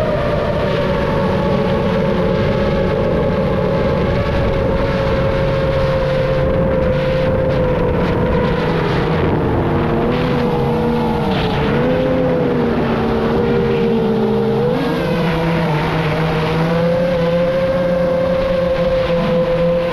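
FPV racing-style drone's motors and propellers whining at a steady pitch over a constant rush of wind noise. The pitch wavers and dips several times around the middle as the throttle changes, then settles back up.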